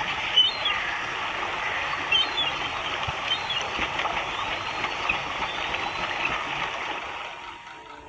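Flowing river water, a steady rushing noise, with a few short high chirps over it in the first few seconds; it fades away near the end.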